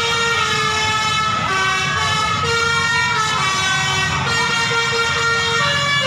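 Bus 'telolet' musical air horn playing a tune that steps back and forth between two or three notes, over the low rumble of the bus engine.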